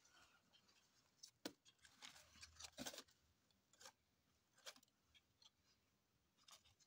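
Near silence, broken by a few faint clicks and scratchy rustles, the loudest about one and a half and three seconds in.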